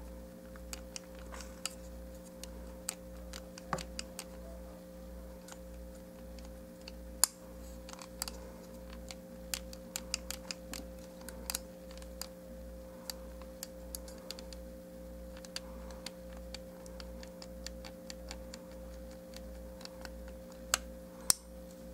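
Small, irregular clicks and taps of a hard plastic Beast Wars Airhammer action figure being handled, as fingers work a tab out of its hole, over a faint steady hum.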